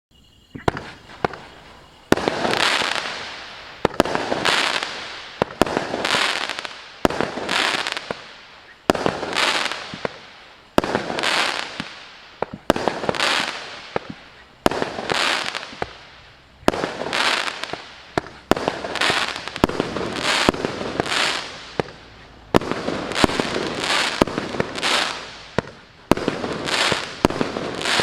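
A 66-shot fireworks cake (Maxsem GWM6602 'New Times') firing shot after shot, with a sharp bang about every two seconds. Each bang is followed by a rush of noise that fades away before the next shot.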